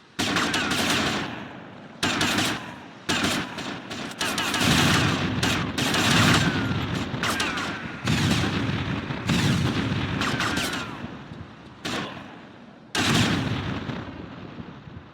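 Gunfire: repeated bursts of shots, each starting suddenly and fading away, mixed with short falling whines.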